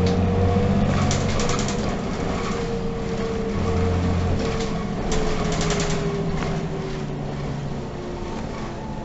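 City bus running, heard from inside the passenger cabin: a steady low engine hum with a whine that slowly falls in pitch, and short bouts of rattling about a second in and again about five seconds in.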